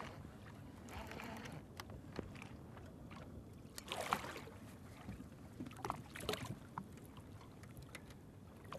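A hooked fish splashing at the water's surface beside a boat: one splash about four seconds in and two more around six seconds, over faint wind and water noise.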